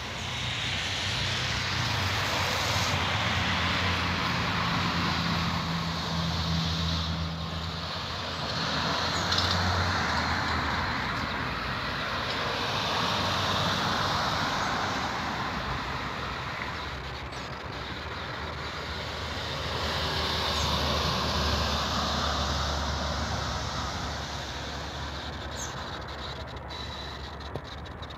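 Road traffic passing: vehicles one after another, the noise swelling and fading in turn, with the low hum of a heavier engine a few seconds in and again about two-thirds of the way through.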